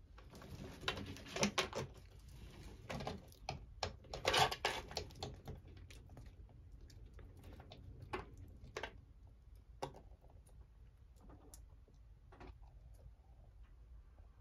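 Scratchy clicks and taps from a green iguana moving across a wooden shelf and snatching a piece of brioche: a dense run for the first five seconds or so, then scattered single clicks.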